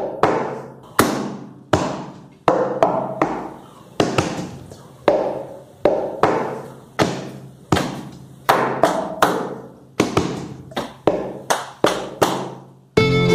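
Cup-rhythm percussion: plastic cups struck and tapped on a tabletop in a steady pattern of sharp hits, each ringing briefly, with occasional quick doubles. Bowed strings come in right at the end.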